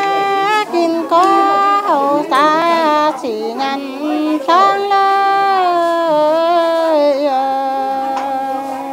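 A woman singing a slow, unaccompanied Dao (Yao) folk song, holding long notes that slide up and down between pitches.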